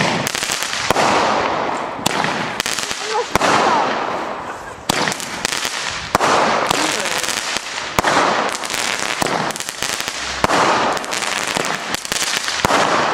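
Ground firework battery firing shot after shot: each shot is a sharp crack at launch followed by about a second of hiss as its sparking tail climbs, roughly one shot every one to two seconds.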